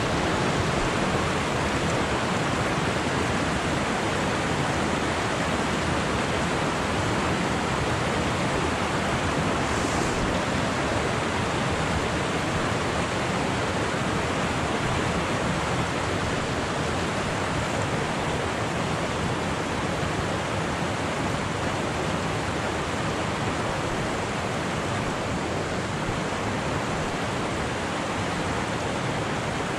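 Fast-flowing mountain creek rushing over rocks and a small cascade: a steady, even rush of water.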